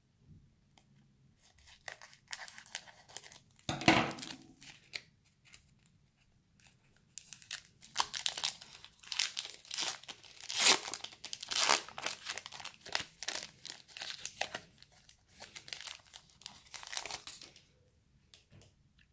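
Foil wrapper of a trading-card pack being cut with scissors and pulled open. There is a sharp crackle about four seconds in, then a long run of crinkling and tearing from the middle to near the end.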